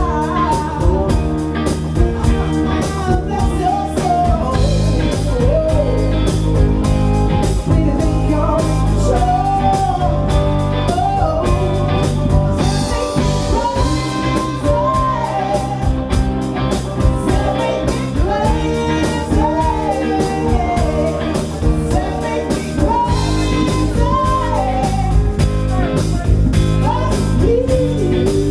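Live blues-rock band playing: drum kit, bass and electric guitar under a lead melody that bends and slides in pitch.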